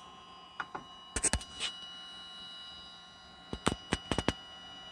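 Sharp clicks, singly and in quick clusters of two or three, about a second in and again past the middle, over a faint steady high-pitched whine.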